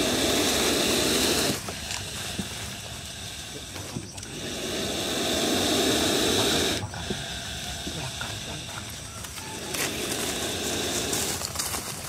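A cobra with its hood spread hissing in defence: three long hisses, the first cut off about a second and a half in, the second in the middle, and a weaker third near the end.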